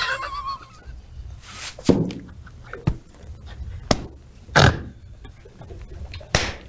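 Two people laughing hard, mostly silently: a wavering high squeal trails off at the start, then scattered breathy wheezes and gasps, with a few sharp hand smacks.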